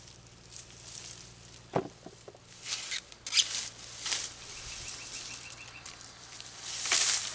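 Dry mulch rustling and scraping in short bursts as potatoes are dug out by hand, with a soft knock about two seconds in and the loudest rustle near the end.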